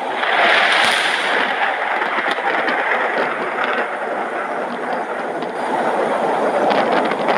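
Heavy thunderstorm rain: a loud, steady hiss of downpour sprinkled with sharp drop clicks. It swells briefly about half a second in. No deep rumble of thunder is heard.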